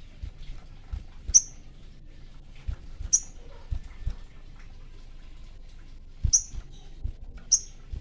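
Male sogon songbird giving short, sharp chirps, four of them spread a second or more apart, each a quick downward flick of pitch. Soft low thumps come between the calls.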